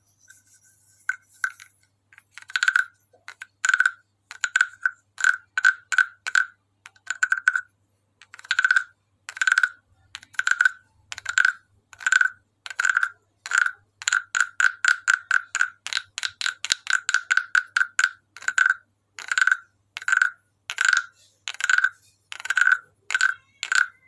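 A hand-carved hollow wooden croaking frog (frog guiro) being played by scraping its wooden stick along the ridged back. Each stroke gives a rasping, resonant croak. The croaks come one or two a second, with a quick run of rapid croaks in the middle.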